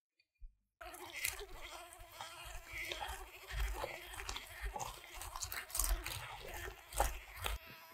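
Electric hand mixer starting about a second in and running steadily, its whisk beaters churning thick butter and banana puree into buttercream, with several sharp knocks along the way.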